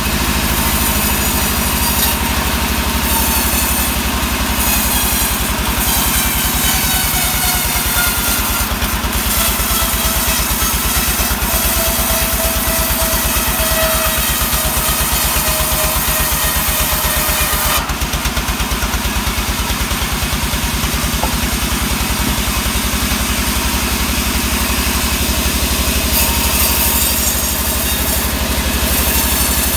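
Engine-driven band sawmill running and cutting a sengon (albizia) log: the engine beats steadily under the hiss and whine of the blade going through the wood. The whine shifts in pitch as the cut goes on, and the cutting sound changes abruptly about two-thirds of the way through.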